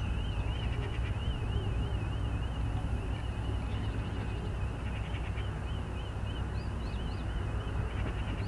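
A steady low rumble, with a continuous high warbling tone rising and falling about three times a second, and a few short chirps near the end.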